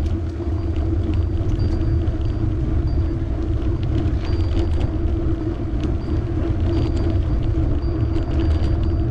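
Riding a bicycle on a road: a steady low rumble of tyres and wind on the microphone, with scattered light clicks and rattles.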